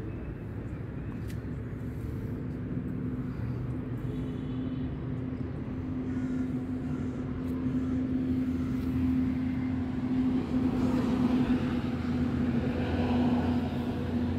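A steady engine hum over a low rumble, growing louder in the second half and peaking a couple of seconds before the end.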